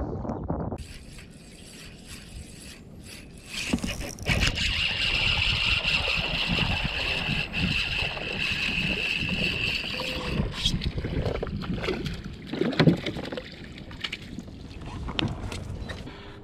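Spinning reel being cranked, a steady whir for several seconds, over water lapping at a plastic kayak. A single sharp knock comes about 13 seconds in.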